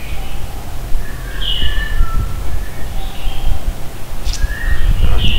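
Several short, high chirping animal calls, a few to the second at times, over a steady low rumble, with a brief sharp click about four seconds in.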